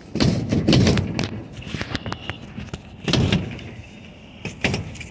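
Handling noise inside a junked truck's cab: clunks, scrapes and rustling against the rusted metal and seat in three bursts, the loudest in the first second, with a short squeak about two seconds in.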